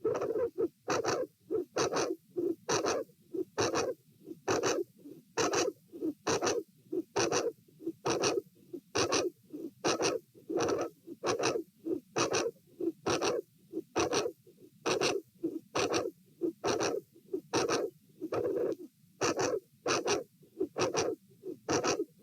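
Heart sounds heard through a stethoscope, beating in a steady, even rhythm. Each beat carries a very loud mid-to-late systolic sound and a murmur with the second heart sound, which the uploader puts down to a dilated aortic root (an aortic vascular click).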